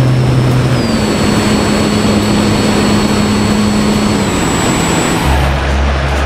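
Electric motor and folding propeller of a Multiplex EasyGlider 4 model glider running under power, heard from on board over heavy wind rush. The motor's whine steps up in pitch about a second in and drops about four seconds in. The motor cuts out about five seconds in, leaving only the rush and buffeting of wind as the glider coasts.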